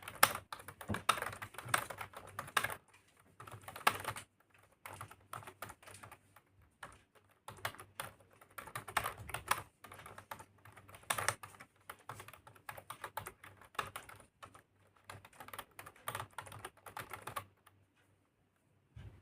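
Fast typing on a keyboard: quick runs of key clicks in bursts with short pauses between them, stopping near the end.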